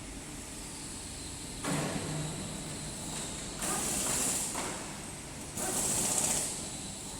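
Hissing noise in three bursts, each about a second long, over a steady low background hum.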